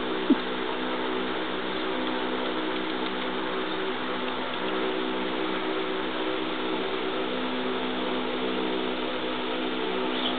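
A steady machine-like hum under a constant hiss, with one short sharp blip about a third of a second in.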